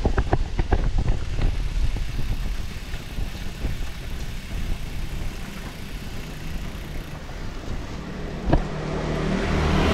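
A bicycle rolling over hexagonal paving blocks and then onto asphalt: steady tyre and ride rumble with rattling knocks over the blocks, a sharp click about eight and a half seconds in, and the noise swelling near the end.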